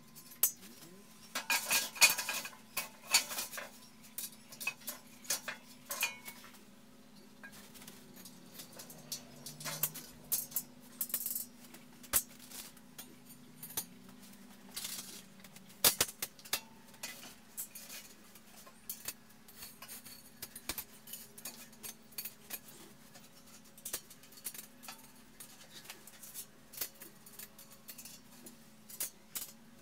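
Irregular metal clinks and clatter of bolts and hardware against a steel frame and an aluminium T-slot extrusion as they are fitted together, with a dense run of clinks about two seconds in.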